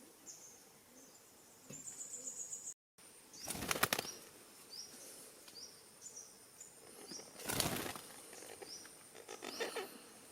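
Bird wings flapping in two loud fluttering bursts, about a second and a half and five and a half seconds in, with weaker flutters near the end. Short rising chirps repeat high in the background over a thin steady high-pitched whine.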